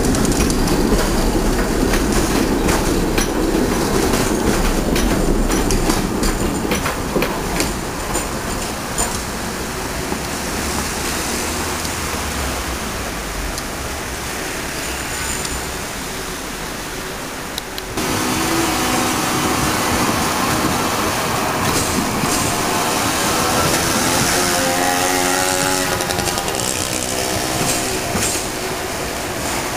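Trams running on street track close by: a dense rumble and rattle of wheels over the rails as a tram passes, then, after a sudden change about two-thirds of the way through, a Düwag TW6000 articulated tram moving off with a wavering whine that rises and falls for a few seconds.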